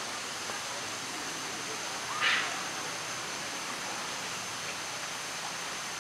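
Steady hiss of forest outdoor ambience with a thin, steady high whine, broken about two seconds in by one short, sharp high call.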